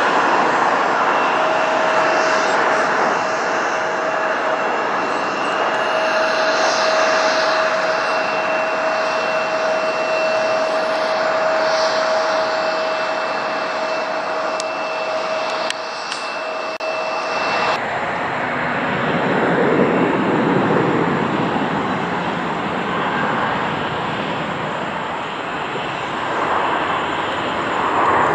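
Jet engines of a Boeing 757 airliner landing: a steady rush with two held whining tones. About 18 seconds in, the sound cuts abruptly to the lower, broader rush of a Boeing 737 airliner's jet engines on final approach.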